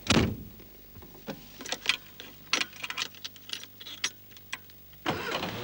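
Car being started with the choke out: a thump, then clicks and knocks from the controls, and the engine catches and runs about five seconds in.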